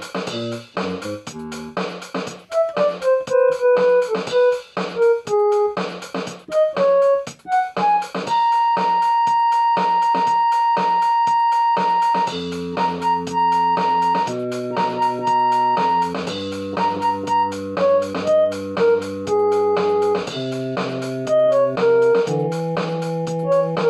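Casio CTK-240 portable keyboard playing a quick melody over a drum-machine beat, then holding one long high note for about four seconds, followed by held organ-like chords under the melody.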